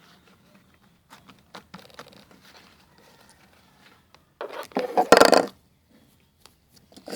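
Slime being handled and squished by hand: faint scattered clicks and crackles, then a louder burst of squelching crackle about four and a half seconds in, lasting about a second.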